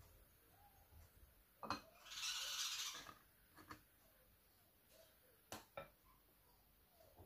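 A silicone spatula knocking and scraping against a glass bowl while scooping double cream: a sharp tap, then about a second of scraping, then a few light knocks.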